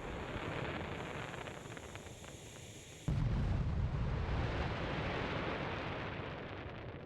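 Big firework explosions: the long fading rumble of one blast, then a second sudden boom about three seconds in that rumbles away slowly.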